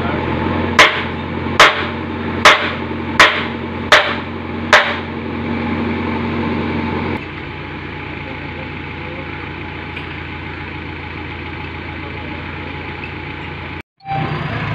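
Six sharp hammer blows on metal, about one every 0.8 seconds, each ringing briefly, over a backhoe loader's diesel engine idling steadily. About halfway through the engine sound drops abruptly to a quieter, steady hum.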